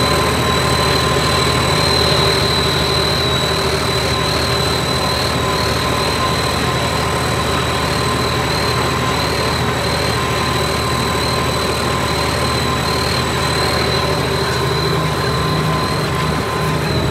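John Deere tractor's turbocharged diesel engine running steadily under load while pulling a disc harrow. A steady high turbo whistle sits over the engine note.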